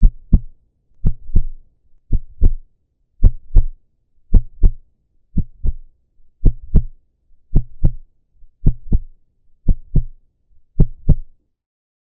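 Heartbeat sound effect: paired low thumps, lub-dub, about one beat a second, eleven beats in all, stopping just before the end.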